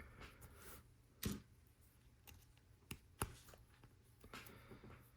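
Faint clicks and taps of Lego Technic plastic pieces being handled and pushed together, with two sharper clicks, about a second in and about three seconds in.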